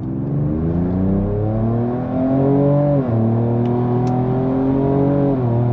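2024 Ford Ranger Raptor's 3.0L twin-turbo V6 accelerating under part throttle, in sport mode with the exhaust valve partly open. The engine note rises, drops sharply as the 10-speed automatic upshifts about three seconds in, then climbs again more gently until a second upshift near the end.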